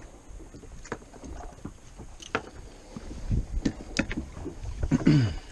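A few scattered light knocks and taps aboard a small fiberglass boat, over a low rumble of wind and water that swells in the second half.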